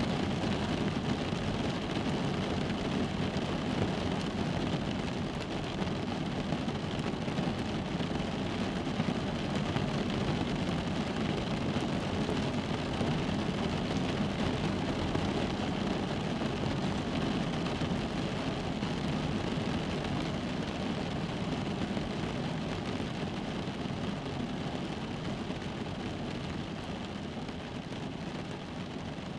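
Steady rain falling on a car's roof and windows, heard from inside the car as a dense, even patter with a low rumble. It eases off slightly near the end.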